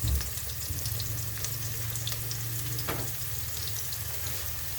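Chopped onions frying in oil in a pan: a steady sizzle with small crackles, with a knock near the start and another about three seconds in.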